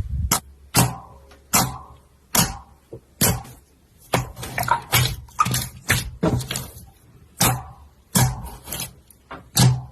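Dry soap being cut and crushed by hand: a series of crisp crunching strokes, about one a second at first, coming thick and fast through the middle.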